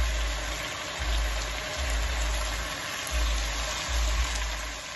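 Chicken pieces sizzling in oil in a frying pan as they brown: a steady frying hiss, with an intermittent low rumble underneath.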